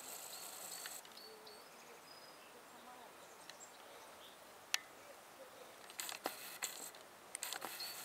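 Quiet outdoor ambience with a squirrel feeding on sunflower seeds close by. There is a single sharp click a little before the middle, then a run of small crackling clicks near the end as seeds and shells are nibbled and handled.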